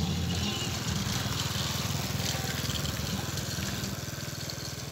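A vehicle engine running with a fast, even pulse, slowly growing fainter.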